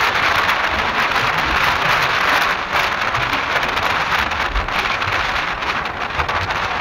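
Steady rushing road noise of a car driving through a road tunnel, easing a little near the end.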